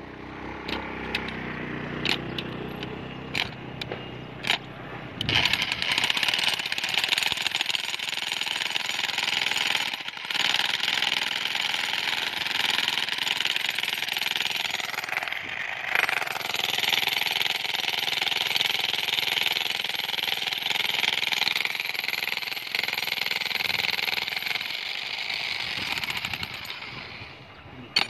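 Corded electric demolition hammer chiselling into hard rock and stony soil, starting about five seconds in and running steadily, with a short break around the middle, before stopping near the end. A few sharp knocks come before it.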